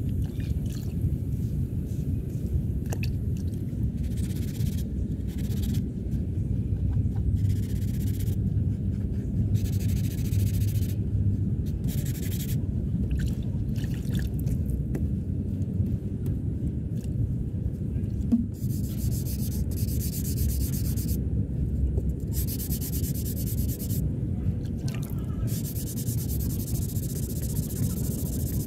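Hand sanding on a car bumper in irregular strokes of about a second each, over a steady low rumble.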